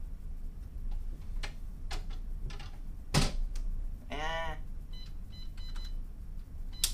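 An in-room cabin safe being worked: a series of sharp clicks and short high electronic keypad beeps as the code is tried, the safe not opening. Around the fourth second a short vocal sound rises and falls in pitch.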